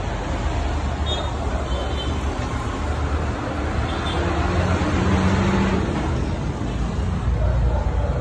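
Road traffic noise: a steady low rumble of passing vehicle engines and tyres, a little louder about five seconds in.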